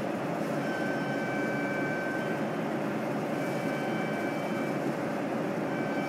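A hovering camera drone's propellers whir steadily, with a thin high whine that comes and goes.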